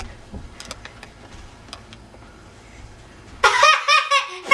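Faint room noise with a few handling clicks, then about three and a half seconds in a child's voice breaks out loud and high-pitched in short repeated bursts of yelling.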